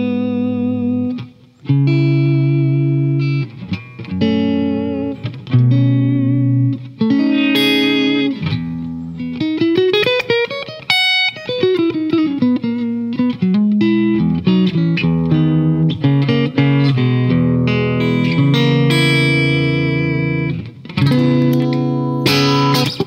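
Electric guitar, a Fender Stratocaster, played through a Fairfield Circuitry Accountant compressor pedal that is switched on: chords and single-note lines, with a quick run of notes climbing and then falling back about ten seconds in.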